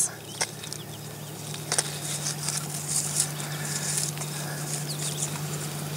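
Rustling and crackling of dry nest vegetation and eggshell fragments being handled close to the microphone as a loon nest is cleared out by gloved hands, with a few sharp clicks. A steady low electrical hum runs underneath.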